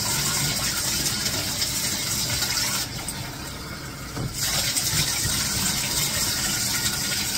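Water poured from a plastic cup over a dog's coat in a bathtub to rinse out the soap, a steady splashing gush. It eases off for about a second and a half near the middle while the cup is refilled at the running tap, then starts again.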